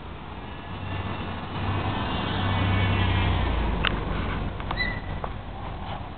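A car passing by: engine and tyre noise swells up, peaks a few seconds in and fades away, with a couple of faint clicks as it goes.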